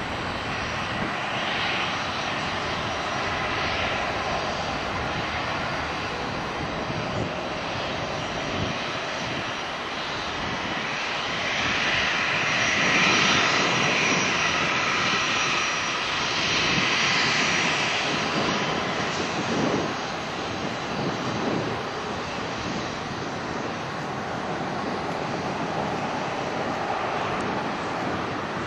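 Boeing 737-300's CFM56-3 turbofan engines at taxi power: a steady jet whine and rush that swells for several seconds in the middle as the aircraft's nose turns toward the microphone.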